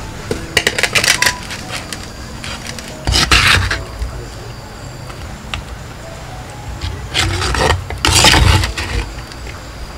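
Wooden spoon scraping inside a clay cooking pot and boiled jackfruit seeds dropping into a second clay pot, in about four short bursts.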